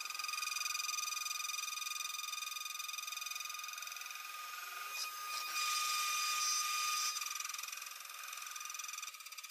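CNC milling spindle running with a steady high whine while milling aluminum plate; the cutting noise grows louder for about a second and a half, from about five and a half seconds in, then eases off.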